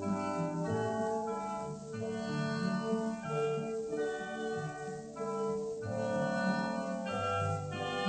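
Classical background music, orchestral, with sustained notes changing in pitch.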